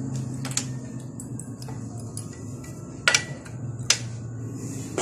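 A few sharp metallic clicks and clinks of metal parts being handled, the loudest a close pair about three seconds in and another about a second later, over a faint low steady hum.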